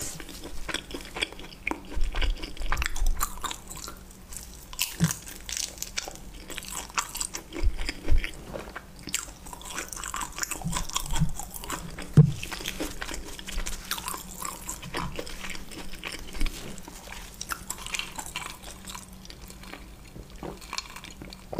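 Mukbang-style eating right up against the microphone: a person biting and chewing a prawn, with many small crisp crunches and wet mouth clicks and a few louder bites.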